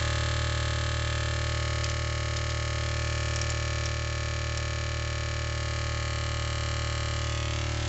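Homemade transistor multivibrator sound generator in its locomotive-sound setting, played through a 10-watt loudspeaker box: a steady electronic buzz with a fast, regular pulsing, driven hard at a raised supply voltage.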